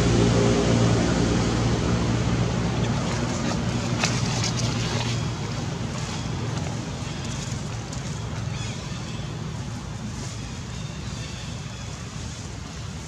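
A motor engine's steady hum, loudest at the start and fading away over the first few seconds, over a continuous rush of wind and outdoor noise.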